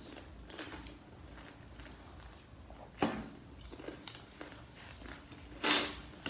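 A person eating crunchy street snacks close to the microphone: chewing, with a sharp crunch about three seconds in and a louder crunch near the end.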